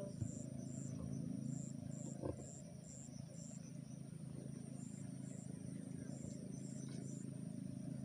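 Night-time outdoor ambience: an insect chirping in short, high-pitched pulses about twice a second, pausing briefly in the middle, over a steady low rumble.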